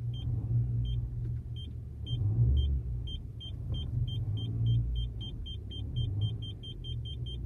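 Aftermarket rear parking-sensor buzzer beeping as the car reverses toward an obstacle: short high beeps that start about a second apart and speed up to about five a second as it gets closer. Under it runs the low rumble of the idling car.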